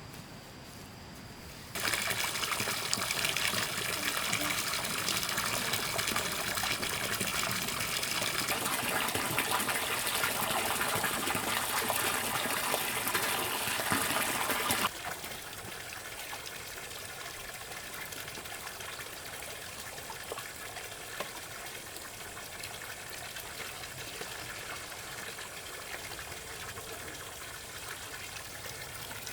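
Water running and splashing. It starts loud about two seconds in, then drops suddenly to a quieter, steady flow about halfway through.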